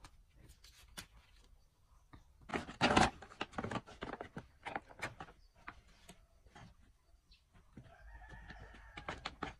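A rooster crowing once near the end, among scattered clicks and knocks, with a louder short clatter about three seconds in.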